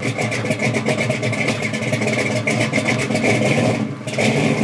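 Car engine running with a choppy, rhythmic lope. It dips briefly about four seconds in, then comes back.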